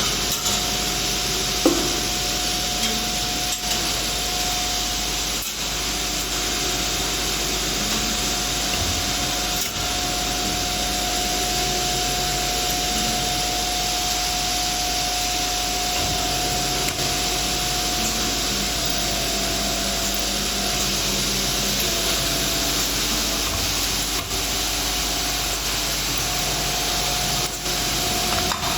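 2D CNC wire bending machine running, a steady mechanical hiss with a constant hum-like tone, a few faint clicks and one sharp knock about two seconds in.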